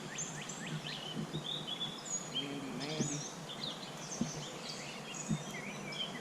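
Songbirds chirping and whistling, many short high calls one after another, over steady outdoor background noise, with two light knocks about four and five seconds in.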